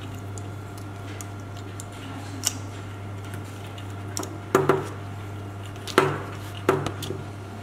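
Hard plastic clicks and knocks from a snorkel's keeper clip and a diving mask being handled and fitted to the mask strap. There are three sharp clicks in the second half, over a steady low hum.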